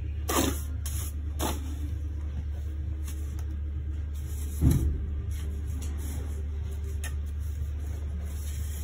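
Steel trowel scraping and tapping cement mortar spread along the top of a sandstone wall course. There are a few short scrapes and knocks, the loudest about halfway, over a steady low hum.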